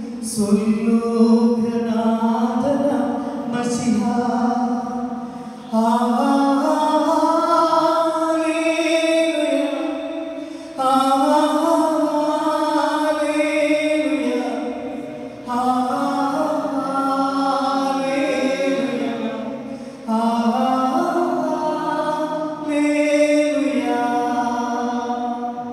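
A man singing unaccompanied into a microphone, in long held, chant-like phrases of about five seconds each with short breaks between them.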